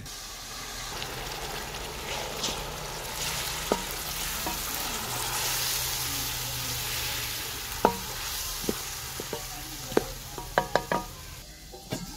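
Soaked whole brown lentils sizzling as they fry in oil and onion-tomato masala in an aluminium pot, stirred with a wooden spatula. A few sharp knocks against the pot, several in quick succession near the end.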